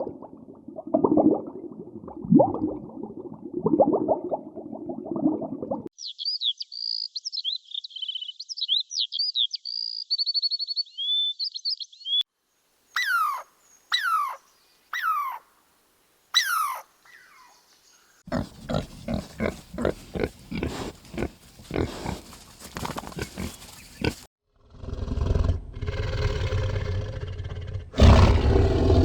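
A run of different animal calls one after another: low grunting calls, then a few seconds of high twittering chirps, then four falling whistled calls, then rapid pulsed calls and a low roar near the end.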